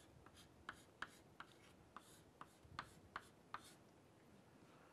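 Chalk writing on a chalkboard: a faint string of short taps and scratches, about a dozen strokes, that stops a little past halfway.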